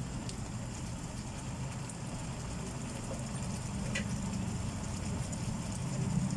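Steady low rumble from a lit gas stove under a simmering pan of chicken gizzard adobo. A light tap comes about four seconds in as the wooden spatula is laid in the pan.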